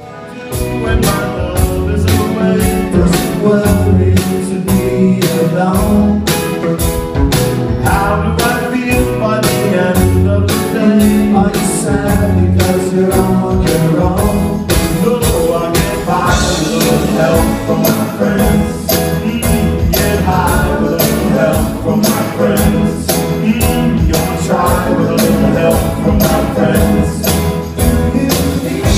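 A band playing a song at full volume, starting abruptly: a steady beat of bright percussion ticks over bass and pitched instruments, as heard at a sound check.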